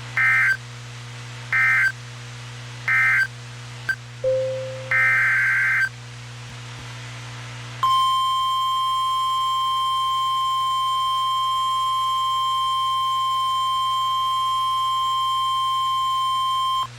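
Emergency Alert System weather radio signalling between warnings: three short warbling data bursts, a longer data burst about five seconds in, then about eight seconds in the steady 1050 Hz weather-radio alert tone, held for about nine seconds before the next warning. This is the alert's coded data header followed by the attention tone.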